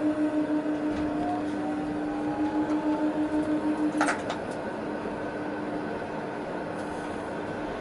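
Tatra T6A5 tram under way, heard from the driver's cab: a steady electric whine with pulsing loudness and a faint rising tone as it gathers speed. About four seconds in there is a sharp click, after which the whine drops away and the tram runs on with quieter steady running noise.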